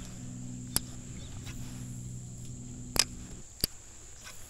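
Steady high-pitched insect drone, with three sharp clicks, the loudest about three seconds in. A low hum underneath stops about three and a half seconds in.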